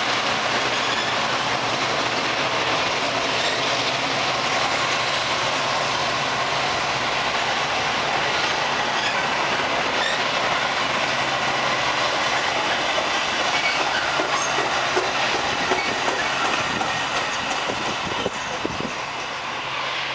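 Metra bilevel commuter coaches rolling past on the near track: a steady noise of steel wheels on the rails, with a few sharper clicks and a slight easing in loudness near the end as the train draws away.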